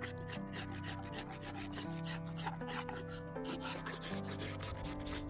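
Carving knife shaving the wooden handle of a spoon in quick, repeated scraping strokes, several a second. Soft background music plays underneath.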